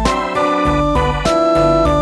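Background music: an electronic keyboard melody over a steady beat.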